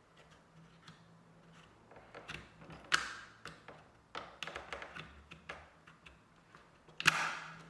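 Light plastic clicks and taps as a new dishwasher door latch interlock is pressed and clipped onto the door opening module, with two sharper snaps, one about three seconds in and one near the end.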